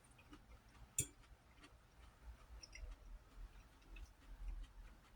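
Faint mouth sounds of someone chewing a cherry tomato: soft scattered clicks, with one sharper click about a second in, over a low background hum.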